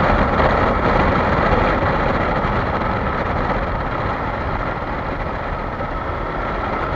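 Kawasaki Versys-X 300 motorcycle's parallel-twin engine running at a steady pace on a gravel road, mixed with tyre noise on loose gravel and wind noise on a helmet-mounted microphone.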